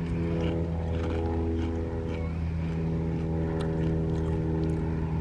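An engine running at a steady speed, giving an even, unchanging drone. A few faint crunches of a potato chip being chewed come through over it.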